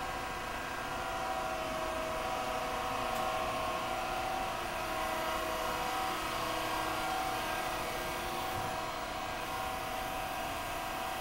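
Reishauer RZ 301-AS CNC gear grinder running under power, not grinding: a steady machine hum with several steady whining tones.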